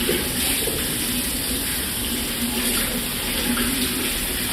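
A steady rushing noise, like running water, with no break or change.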